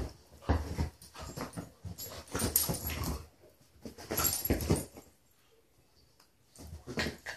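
Two dogs play-fighting, in about four short bursts of growling and snarling play noises mixed with the scuffle of bodies and paws on the couch cushions, with brief pauses between.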